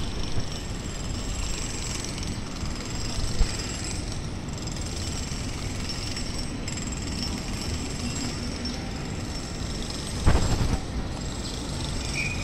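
Steady outdoor background noise, a low rumble with hiss, and a sudden louder low thump or gust about ten seconds in.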